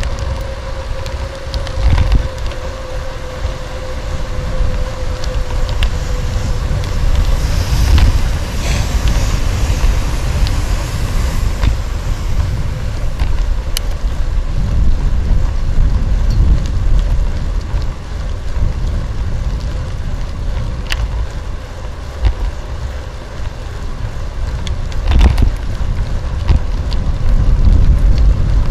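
Wind buffeting the microphone of a bike-mounted DJI Osmo on a moving bicycle, over a steady rumble of tyres on asphalt. Occasional sharp knocks come through from the bike, which has no suspension.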